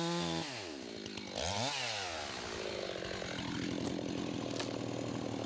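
Chainsaw engine dropping from high revs, revving up and back down once about a second and a half in, then running steadily at a lower speed.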